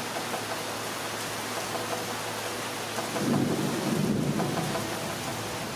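Steady pouring rain, with a rumble of thunder swelling about three seconds in and dying away over a second or two.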